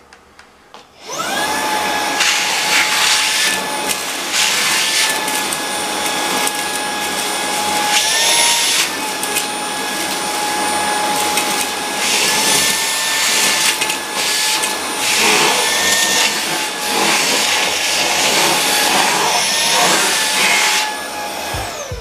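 Ryobi RSV18X cordless stick vacuum with a brushless motor, used as a handheld with a crevice nozzle, switching on about a second in and sucking up crumbs: a steady high whine over rushing air, its pitch rising slightly twice, then winding down near the end.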